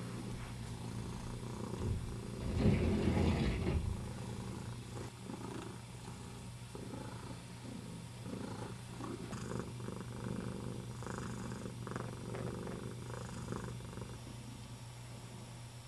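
Domestic cat purring steadily, with a louder burst of purring and rustling about three seconds in.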